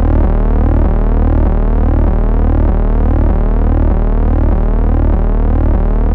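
Background music: an electronic synthesizer drone, a steady low hum layered with tones that sweep up and down in pitch in a repeating pattern.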